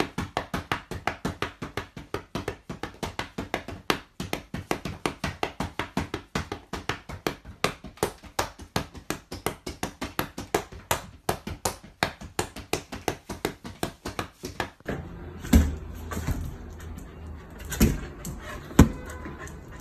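Rapid, steady slapping of rubber flip-flops, about four slaps a second, as they are batted at an umbrella cockatoo that bites at them. About 15 seconds in this gives way to a low hum and a few dull thumps as a corgi jumps at a balloon.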